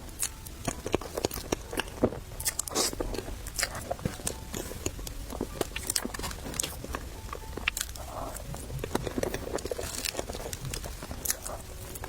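Close-miked eating: crunchy bites and chewing with wet mouth clicks, irregular and continuous.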